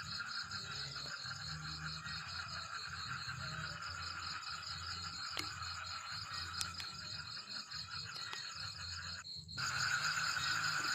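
Steady night chorus of calling frogs and insects: dense, continuous high trilling that breaks off for a moment about nine seconds in and comes back slightly louder.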